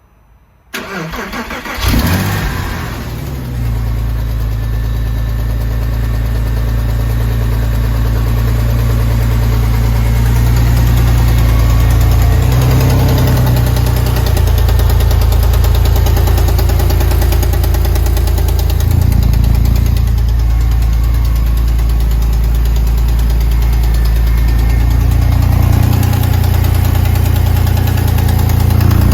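Porsche 996 flat-six engine cranked by the starter and catching about two seconds in, then running steadily at idle. Its noise is taken by the owner for piston slap or bearing damage on the second cylinder bank.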